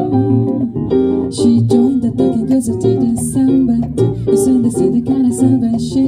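A jazz combo plays an upbeat samba: archtop guitar, double bass and electric piano, with a woman singing into a microphone.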